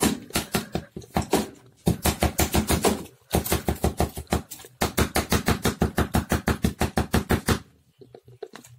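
Rapid, even clicking or tapping at about six or seven strokes a second. It comes in a short run, then a longer run of about four seconds, and stops near the end.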